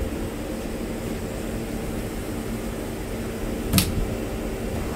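CNC lathe running with coolant flowing while a thread-rolling head rolls threads onto a pre-hardened 4140 steel head stud: a steady machine hum with several fixed tones. A single sharp click a little under four seconds in.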